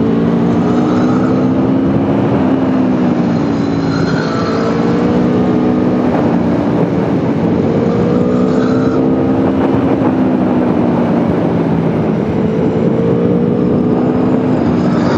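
2021 Aprilia Tuono V4 1100's V4 engine pulling under way, its pitch climbing steadily and then dropping back, four times over.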